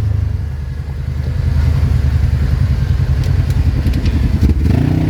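Dune buggy engine running at low speed over rough ground, with a few rattling knocks from the bouncing chassis. Near the end the engine revs up, its pitch rising.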